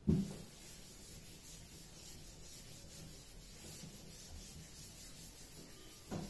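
Chalkboard duster wiping a chalkboard clean, a steady scrubbing rub in repeated strokes. A thump right at the start and a smaller one just before the end.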